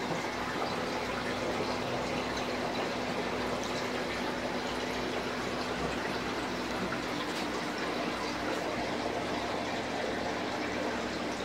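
Aquarium filtration running: a steady rush of moving water with a faint low hum underneath.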